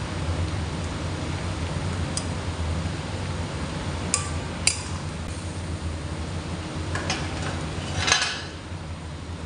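A metal spoon clinks against a steel karahi a few times, loudest near the end, over the steady noise of a gas burner and chicken boiling in water.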